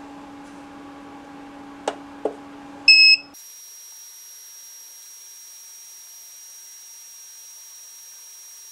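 Artillery Sidewinder X1's touchscreen buzzer gives one short, loud electronic beep about three seconds in as the MKS TFT28 display restarts to flash its new firmware. Before it, a steady low hum from the printer and two light clicks; right after the beep the hum cuts off and only a faint high whine remains.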